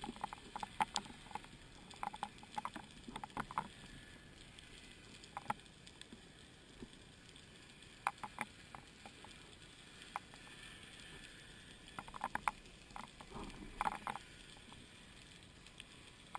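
Underwater sound picked up by a speargun-mounted camera in its housing: a faint steady hiss with irregular sharp clicks and ticks that come in clusters, and a short low rumble of water movement near the end.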